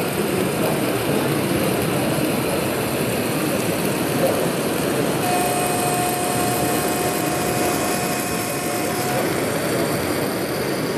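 HO-scale model diesel locomotive running slowly with a steady, engine-like rumble. A faint steady tone sounds over it for a few seconds in the middle.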